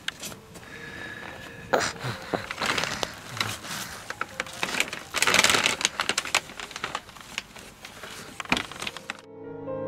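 Thin plastic carrier bag rustling and crinkling in irregular bursts as a baby grabs and pulls at it. Piano music comes in near the end.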